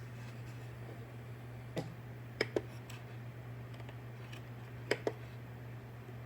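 A few sharp clicks, in pairs about two and a half and five seconds in, from the control knob of a DIY 3D printer's control panel being turned and pressed to step through its menus. Under them runs a steady low electrical hum.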